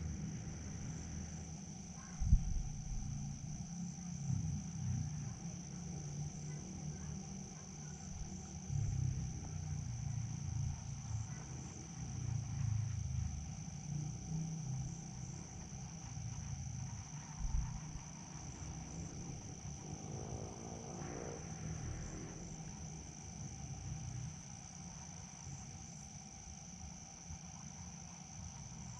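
Crickets chirring in one steady high drone over an uneven low rumble, with a sharp thump about two seconds in.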